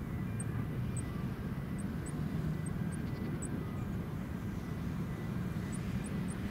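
Goldcrest calling: about ten short, very high, thin notes in irregular little groups, with a pause in the middle. Under them runs a steady low rumble.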